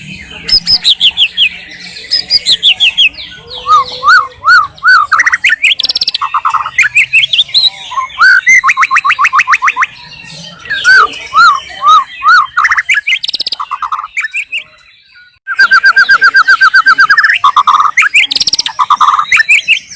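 White-rumped shama singing a loud, varied song of rapid trills, whistled notes and repeated chirps, with a brief pause about three-quarters of the way through.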